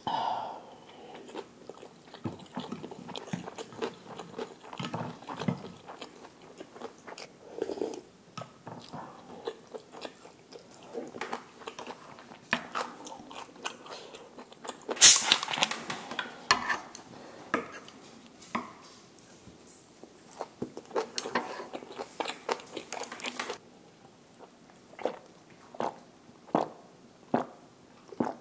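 Close-miked eating: a person chewing and biting food, with many short crisp crunches. The loudest burst of crunching comes about halfway through.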